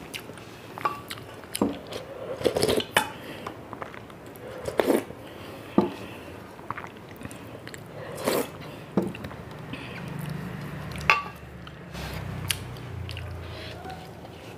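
Close-miked eating sounds from a person eating rice and fish curry by hand: sharp, wet mouth smacks and slurps, irregularly spaced, as she licks curry from her fingers and from the plate, with chewing in between.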